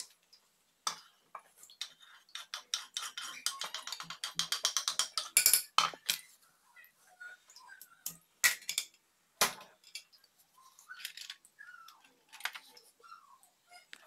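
Rapid knife strokes chopping onion on a wooden cutting board, about five or six a second, ending in a loud knock about five seconds in; then a few separate knocks and clinks of a knife and utensils against the board and an aluminium pot.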